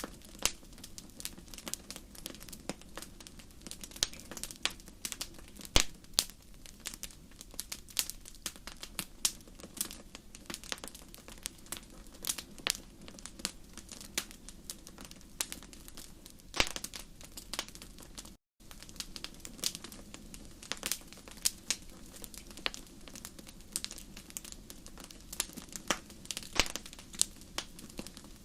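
Wood fire crackling in a fireplace: dense, irregular sharp pops and snaps over a steady low rumble of the flames. The sound drops out for an instant about two-thirds of the way through.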